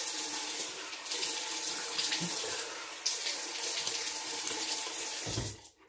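Water running from a tap into a bathroom sink as a face is rinsed, with small splashes; the flow stops abruptly near the end.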